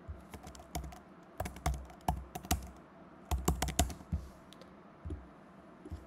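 Typing on a computer keyboard: bursts of quick keystrokes in two main clusters, with a few scattered clicks around them.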